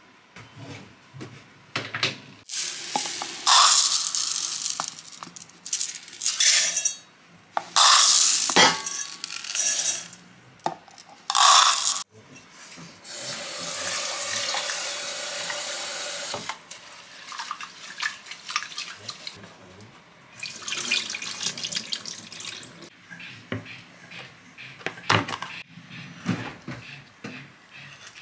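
Kitchen tap running in several bursts, then water filling a metal pot for about three seconds. Lighter clatter of kitchen handling and a knife on a wooden cutting board follow near the end.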